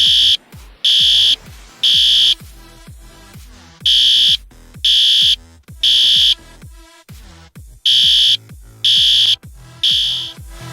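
System Sensor SpectrAlert Advance fire alarm horn sounding in the temporal-3 evacuation pattern: three short loud blasts of a high, steady tone, a pause, then repeated three times. An electronic dance music track plays underneath.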